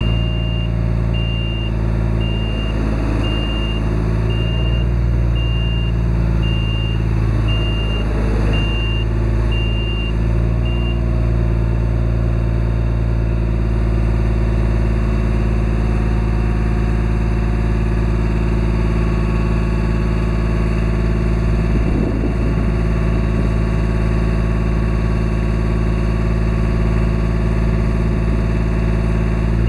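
The power unit of a Genie Z-45/25 articulating boom lift runs steadily while the boom is worked. A high-pitched alarm beeps about once a second for roughly the first ten seconds, then stops.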